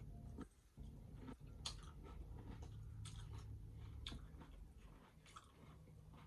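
Faint close-up chewing of a crispy hard-shell taco, with several sharp crunches spread through it over a low steady hum.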